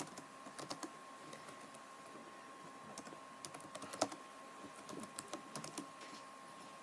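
Typing on a computer keyboard: irregular keystrokes in short clusters, the loudest about four seconds in.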